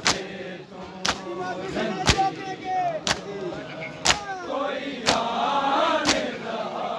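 Mourners' hands slapping bare chests in unison in matam, one sharp slap about once a second, over a crowd of men's chanting voices.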